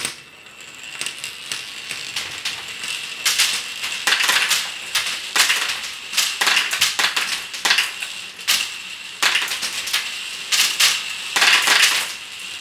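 Marbles rolling and clattering down a plastic marble run: a continuous rolling rattle with a steady high ringing, broken by many quick clicks and knocks as they drop through the track pieces.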